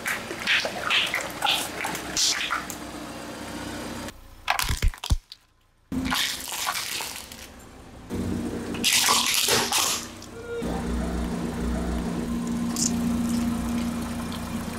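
Water balloons bursting and splashing under a car tyre, as a string of short pops. Later comes a loud crackling burst about nine seconds in, and near the end a steady low engine hum.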